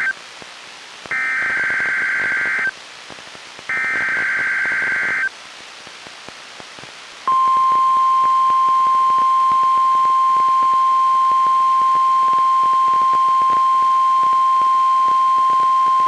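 NOAA Weather Radio test alert through a Reecom R-1630 weather radio: two full bursts of screechy two-tone SAME digital header data, plus the tail of an earlier one, with radio hiss between them. About seven seconds in, the steady 1050 Hz warning alarm tone sounds for about nine seconds and cuts off near the end.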